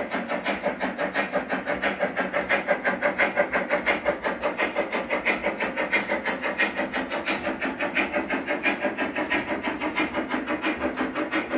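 LGB garden-scale model goods train running past: the locomotive's motor and gearing run steadily while the wheels beat on the track in a fast, even rhythm of about six pulses a second.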